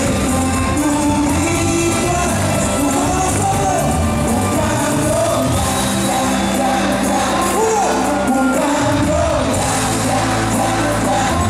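Live band playing in a large hall: a man singing into a microphone over keyboard, electric guitar, drums and a horn section.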